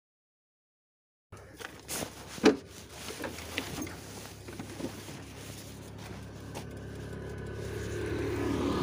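A second of dead silence, then scattered light knocks and rustles from gloved hands working around a Yamaha FZ motorcycle, whose throttle cable has snapped. Under this, a faint engine idle grows slowly louder toward the end.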